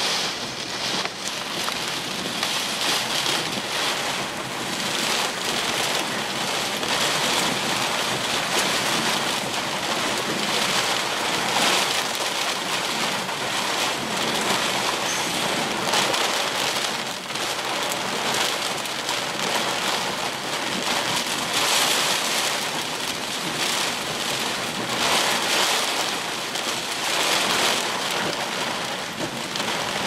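Heavy rain hitting a car's windshield and roof, heard from inside the car: a dense, steady hiss that swells and eases every few seconds.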